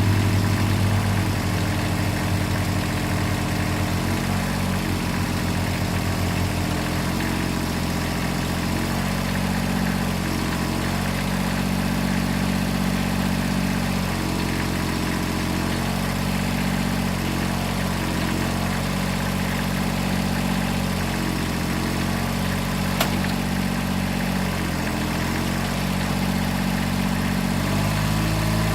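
Kubota B6100 tractor's small diesel engine running below half throttle while powering a three-point backhoe through its hydraulics, the pitch dipping briefly every second or two as the engine takes load. One sharp knock about two thirds of the way through.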